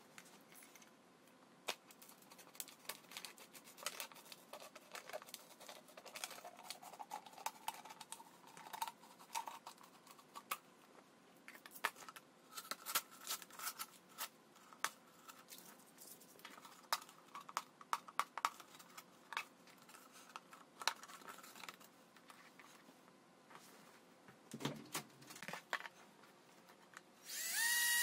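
A plastic PET bottle being handled and cut, giving scattered crackles and clicks. About a second before the end a power drill starts with a quick rising whine and runs at a steady pitch, drilling through the bottle's base; it is the loudest sound.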